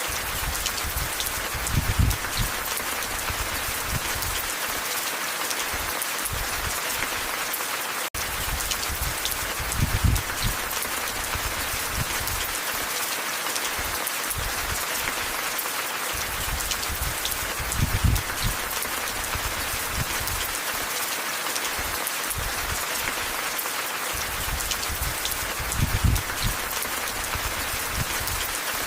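Steady rain, an even hiss, with a short low rumble that comes back about every eight seconds and a momentary dropout about eight seconds in.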